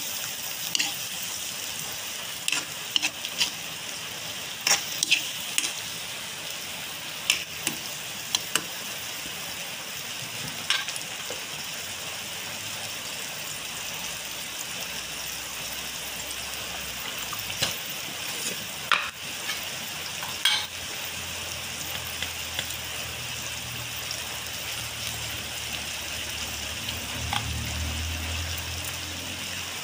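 Squid simmering in coconut milk in a wok: a steady sizzle with scattered sharp pops and crackles as the sauce comes to a bubbling boil.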